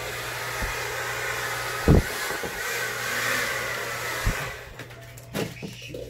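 Hair dryer blowing, then cutting off about four and a half seconds in. A knock sounds about two seconds in, with fainter knocks before and after.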